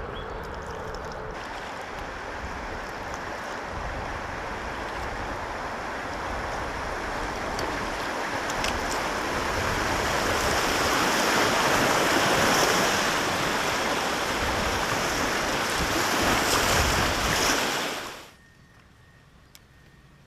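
Rushing river water, a steady noise that slowly swells louder and then cuts off abruptly near the end, leaving only a faint background.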